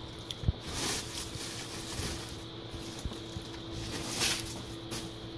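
Plastic bag wrapping a computer monitor rustling and crinkling as it is handled and slid out of the box, in a few short rustles, loudest about four seconds in.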